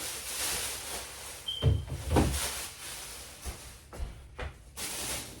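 Groceries being handled and put into a refrigerator: rustling, with a few knocks and thumps, the loudest about two seconds in, and one short high beep just before them.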